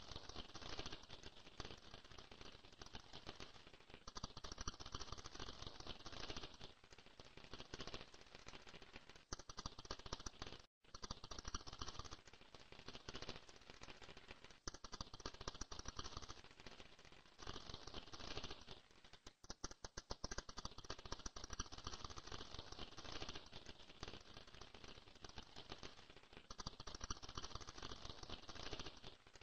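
Rapid, dense clicking and rattling that swells and fades in uneven stretches, with a moment of complete silence about eleven seconds in.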